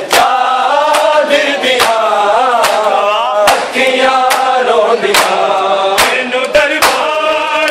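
A Punjabi noha chanted by a male reciter with a group of men's voices, kept in time by sharp regular strokes a little more than once a second: the hand-on-chest beating (matam) that goes with a noha.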